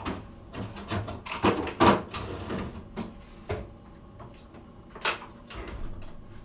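Scattered knocks and clicks of someone moving about a kitchen, opening a refrigerator door and handling a plastic food container, with a sharper click about five seconds in.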